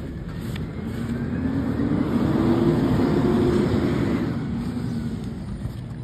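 Automated side-loader recycling truck's engine running as it drives past, growing louder toward the middle and then fading.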